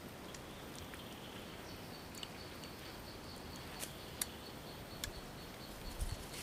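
A few faint, scattered clicks and snaps of fingers handling a cluster of small wild fruit on its stems. Under them runs a quiet background with a faint steady high tone.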